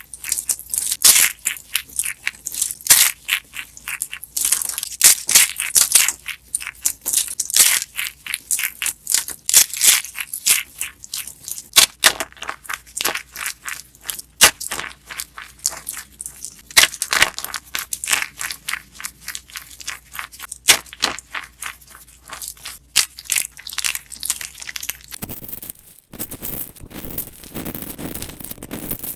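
Dried soap being crushed, crumbling in a fast, irregular run of crunches and crackles. About 25 seconds in it turns into a denser, steadier crumbling rustle.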